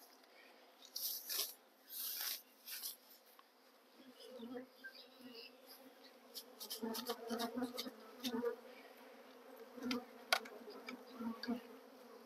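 Honey bees buzzing around a hive entrance, coming in about four seconds in, with rustling and small clicks of hands working at the hive.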